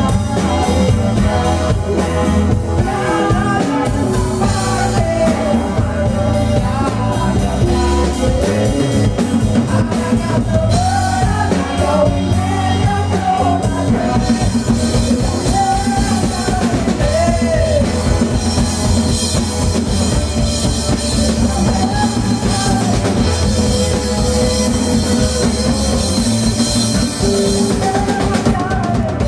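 Live band playing a song: a woman singing over acoustic guitar, electric bass, a hand drum and a drum kit.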